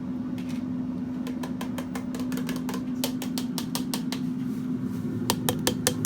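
Steady mechanical hum with a run of quick light taps or clicks starting about a second in, coming faster and louder near the end.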